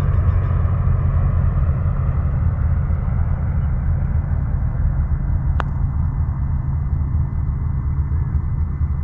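Light propeller plane's engine droning overhead and slowly fading, over a steady low rumble. About five and a half seconds in, one sharp click of a putter striking a golf ball.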